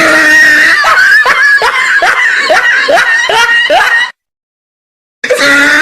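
High-pitched rhythmic laughter of about three short falling "ha"s a second. It cuts off abruptly about four seconds in and starts again near the end.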